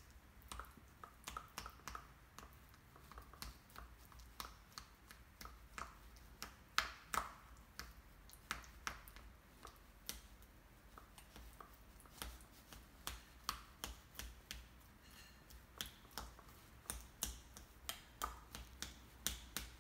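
A spoon mashing avocado in a small bowl: faint, irregular clicks and taps as the spoon knocks the bowl, a couple a second.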